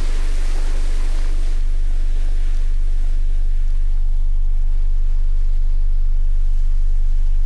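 A loud, deep, steady low drone, with a rushing hiss over it that fades out in the first couple of seconds.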